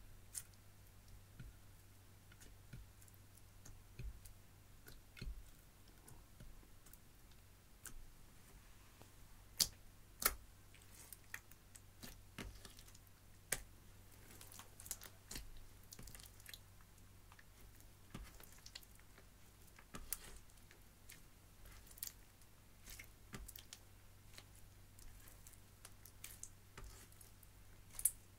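Clear slime mixed with crushed eyeshadow being kneaded and stretched by hand, giving quiet, irregular sticky clicks and squishes.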